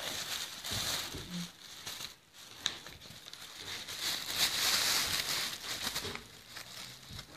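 Thin plastic bag rustling and crinkling around a Yorkshire terrier puppy lying inside it, loudest from about four to six seconds in as a hand works at the bag, with one sharp click shortly before the middle.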